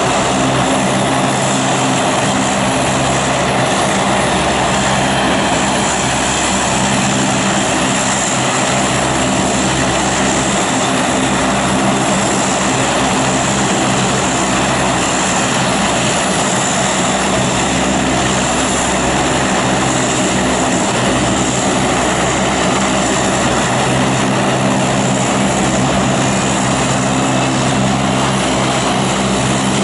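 Lockheed Hercules turboprop engines running steadily with their propellers turning. The sound is an even drone, with a faint rising whine near the end.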